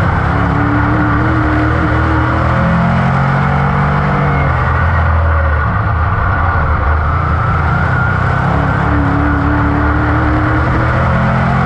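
The Chevrolet 602 crate V8 of a dirt-track modified racing flat out, heard from inside the cockpit. The engine note climbs as the driver gets on the throttle and drops as he lifts for the turn, twice: first a few seconds in, then again near the end.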